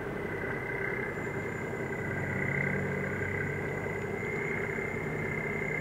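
Ferry's engines and onboard machinery running, a steady hum with several held tones and a faint high whine joining about a second in.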